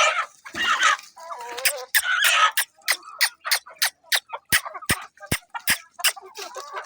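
Domestic hens clucking with a few short squawks, over a run of sharp clicks, several a second.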